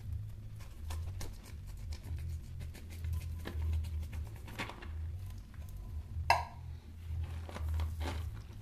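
Clinks, knocks and scrapes of a tin can and hand working canned dog food into a metal dog bowl, with one loud ringing clank about six seconds in.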